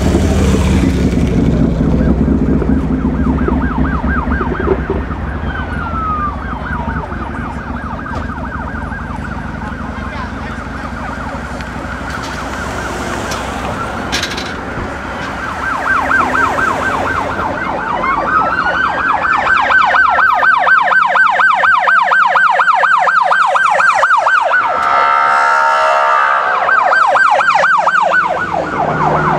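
An emergency-vehicle siren rapidly yelping up and down in pitch, with a few slower wailing sweeps, growing louder in the second half. A low engine-and-traffic rumble underneath fades after the first few seconds. A single sharp bang comes about halfway through.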